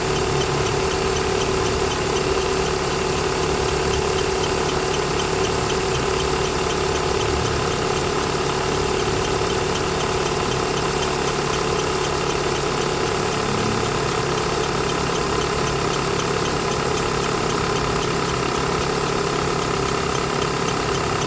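2014 Renault Sandero engine idling, with a steady chirping noise from the accessory drive belt over the engine sound. The owner does not know its cause.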